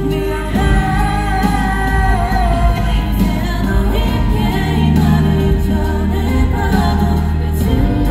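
Male K-pop group singing a Korean pop ballad live over a backing track, with drawn-out sung lines above a steady bass accompaniment.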